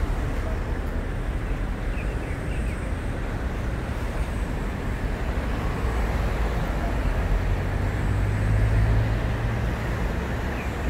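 Steady road-traffic noise from cars passing on a busy bridge, a continuous low rumble with tyre hiss. It swells with a louder, deeper rumble about three-quarters of the way through as a vehicle goes by.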